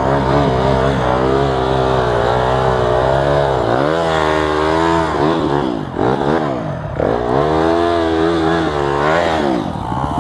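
Dirt bike engine running at a steady idle, then revved up and down several times from about four seconds in as the bike is worked free of the mud.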